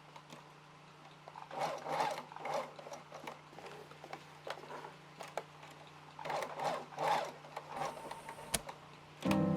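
Sewing at a sewing machine: a steady low hum with two spells of cloth rustling and clicks as the fabric is worked. Music starts just before the end.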